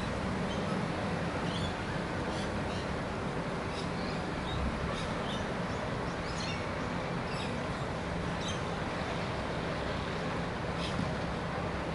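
Rainbow lorikeets chirping in short high calls every second or so, over a steady low rumble.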